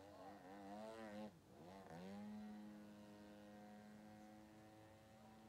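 Faint 120cc two-stroke gas engine of a radio-controlled Laser aerobatic plane, its pitch wavering with the throttle, dropping sharply about a second and a half in, then rising and holding a steady note while the plane hangs nose-up.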